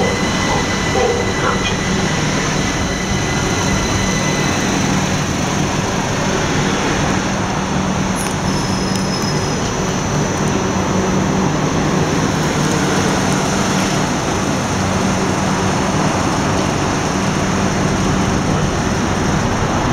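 Electrostar electric multiple unit running alongside the platform: a steady rumble of wheels on rail with a low motor hum, and a brief high squeal about eight seconds in.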